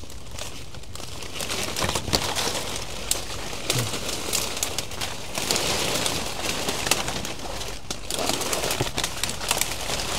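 Birds calling in the forest over a continuous rustle and crackle, like movement through dry vegetation.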